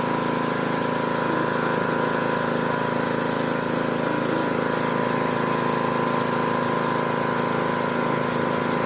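Gas-engine pressure washer running steadily while spraying plain water to rinse.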